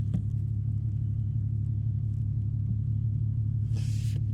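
Steady low rumble of a car, heard from inside the vehicle.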